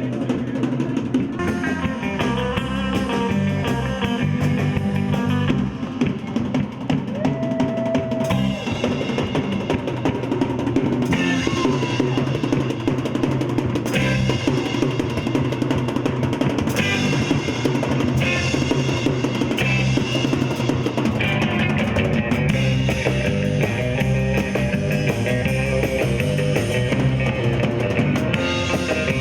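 Live band playing a song, with drum kit to the fore over guitar and bass.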